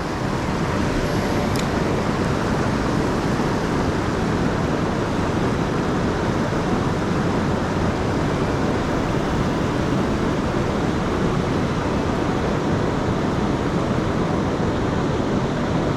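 Fast-flowing floodwater on a river rushing steadily, an even hiss and rumble without a break. A faint single click sounds about a second and a half in.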